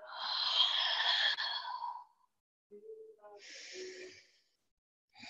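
A woman breathing audibly: a long inhale of about two seconds, then a quieter exhale about a second later.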